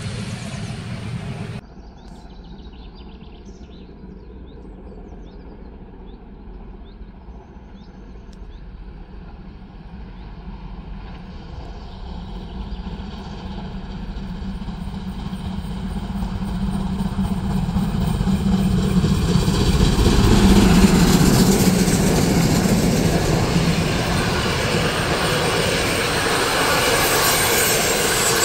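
Steam train hauled by DR class 01 locomotives approaching, growing steadily louder to a peak about two-thirds of the way in. The passenger coaches then rumble past on the rails near the end.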